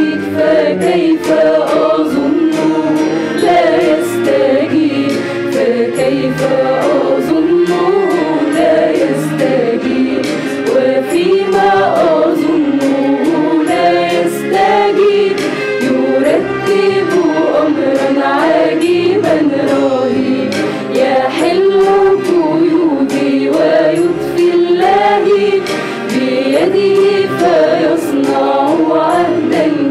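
Mixed choir of women and men singing an Arabic Christian hymn.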